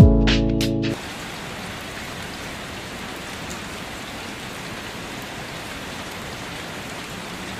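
Background music that cuts off suddenly about a second in, followed by rain falling: a steady, even hiss.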